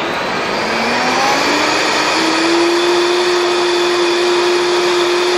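Vitamix Professional 500 blender running as its speed dial is turned up. The motor's pitch rises over the first two seconds, then holds steady at high speed as it whips heavy cream.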